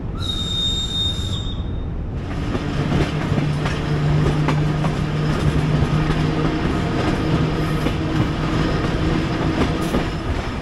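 Passenger train coach being pulled slowly out of a station. The wheels rumble on the track with scattered clicks over rail joints and a low steady hum. A brief high-pitched whine sounds in the first second or so.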